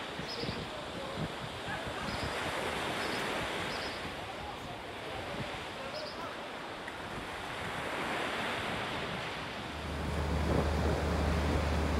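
Sea waves washing, with wind buffeting the microphone; the noise swells and eases. About ten seconds in, a steady low hum comes in and stays.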